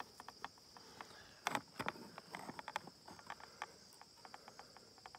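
Faint scattered taps and knocks of a clear plastic ruler and a gelatin block being handled on a wooden rail, the two strongest about a second and a half in. Underneath, a steady high insect chirr, typical of crickets.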